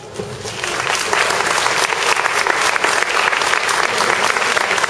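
Audience applauding: clapping that starts about half a second in, swells within the first second, then goes on steadily.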